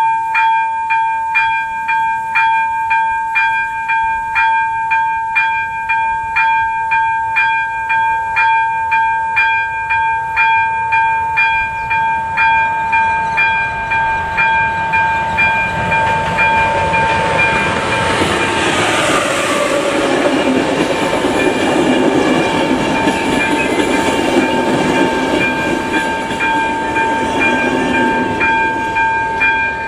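ZV-02 electronic level-crossing bell ringing steadily, a little under two dings a second. From about halfway through, a České dráhy passenger train rumbles over the crossing and rises over the bell, with a falling whine as it passes.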